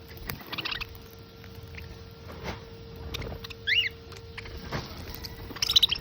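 Parrots and doves feeding: scattered pecking clicks and scrabbling, with a few short high calls, the loudest near the end. A faint steady hum runs underneath.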